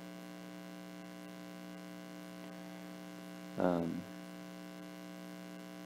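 Steady electrical hum with many evenly spaced overtones, strongest low down. A brief vocal sound cuts through it about three and a half seconds in.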